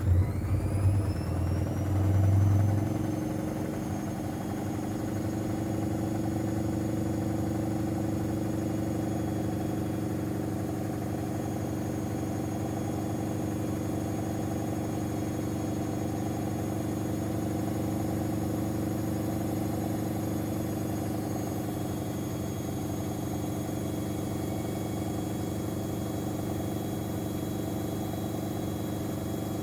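Whirlpool FL 5065 washing machine speeding up into its 600 rpm spin with an unbalanced load. A motor whine rises over the first couple of seconds while the drum thumps heavily for about three seconds, then settles into a steady spin hum with a high whine.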